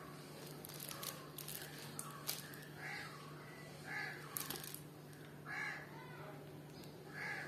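A bird calling faintly in the background, four short calls spaced a second or more apart, over a steady low hum, with a few faint clicks.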